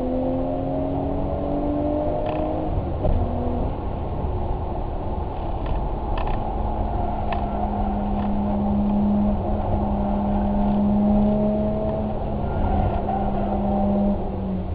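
A motor vehicle's engine running over a constant low rumble. Its note climbs slowly, drops about three seconds in, then holds steadier and a little lower. A few light clicks come through in the middle.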